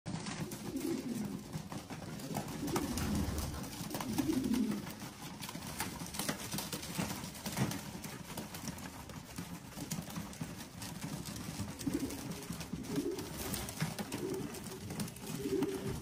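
A flock of racing pigeons cooing in repeated low warbles while they feed, with many quick, sharp ticks of beaks pecking seed off the floor.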